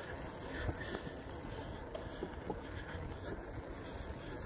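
Bicycle ride on a concrete path: a steady rush of wind and tyre noise, with a few light clicks and rattles from the bike.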